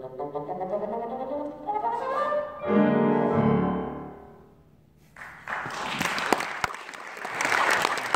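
Bassoon and piano play a rising run into a loud final chord that rings out and dies away. About five seconds in, audience applause starts.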